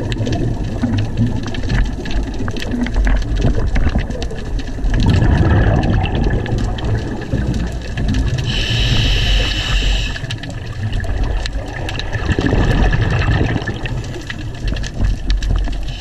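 Underwater scuba breathing through a regulator: a hissing inhale about halfway through and two bubbling exhales, about 5 s and 12 s in. Sharp crackling clicks run throughout.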